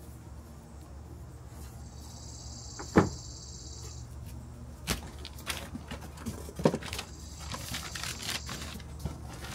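Handling noise at an open cardboard box: one sharp knock about three seconds in, then scattered clicks, taps and rustling as hands work over the packed board and its wrapping.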